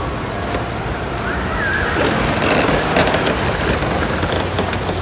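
Steady roar of a busy exhibition hall, with faint distant voices and a few light clicks near the middle.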